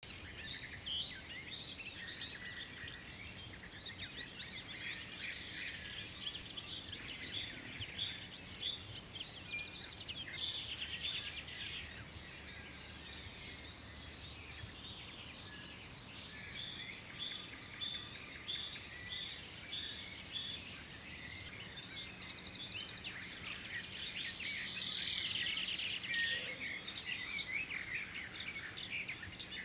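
Dawn chorus: many songbirds singing over one another, with warbled phrases, rapid trills and runs of short, high repeated notes.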